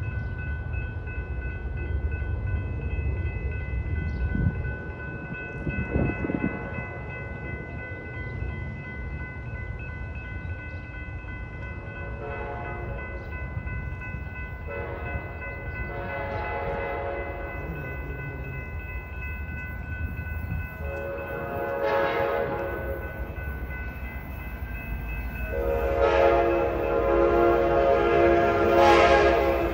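An approaching commuter train sounds its multi-tone air horn in four blasts, the last the longest and loudest, over the steady ringing of the grade-crossing bell and a low rumble of the train drawing near.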